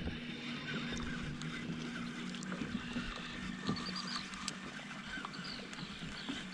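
Faint outdoor ambience: a steady low hum with small birds chirping faintly and a few light ticks.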